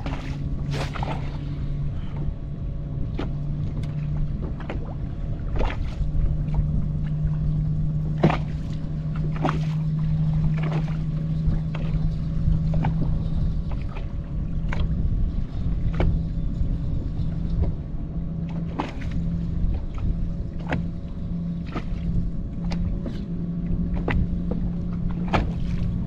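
Bass boat's bow-mounted electric trolling motor humming steadily, then cutting in and out repeatedly over the last half, over low wind and water noise. Scattered sharp ticks and taps come through it.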